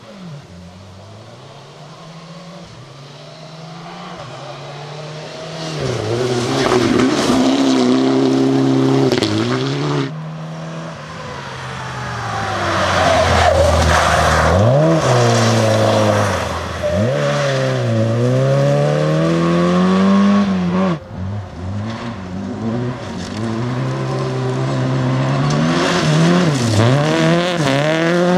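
Rally cars driven hard on loose gravel, one after another. Their engines rev up and drop through gear changes as each car comes in and passes, with tyre and gravel noise. It starts quieter as the first car approaches, and the sound switches abruptly to another car about ten seconds in and again near twenty-one seconds.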